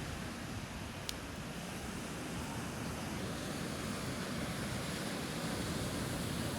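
Surf washing onto a sandy beach, a steady rush with wind on the microphone. A single sharp click about a second in.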